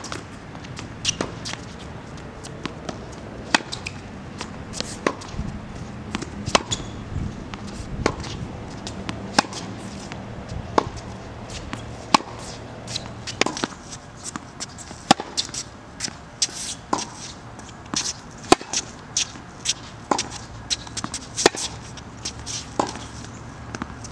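Tennis balls struck with a racket in a hard-court rally: a sharp pop about every second and a half, with smaller ball bounces and shoe scuffs between them.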